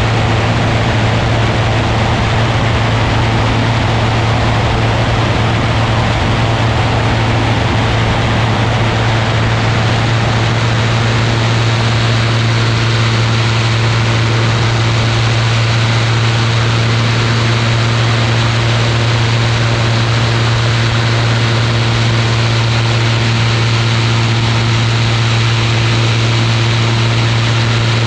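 Ultralight aircraft's engine and propeller running steadily in flight: a constant low hum under a broad rush of wind noise.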